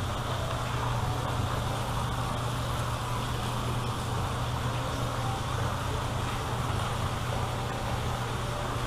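Small artificial waterfall splashing into a pond: a steady rushing of falling water with an even low hum underneath.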